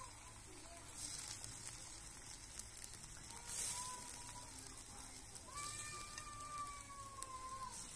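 Pieces of batter sizzling as they are dropped into hot oil in a two-handled wok, the sizzle flaring up a few times. An animal calls twice in the background, a short call about halfway and a long drawn-out one near the end.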